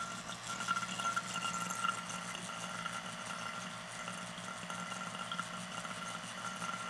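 Vacuum pump running steadily: an even, low hum with a faint steady whine above it.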